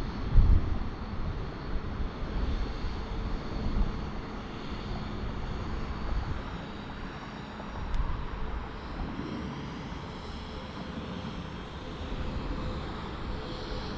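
A Bombardier CRJ-900 regional jet's two rear-mounted turbofans at takeoff thrust: a steady rushing rumble as the jet lifts off and climbs out. A few loud low thumps come in the first second.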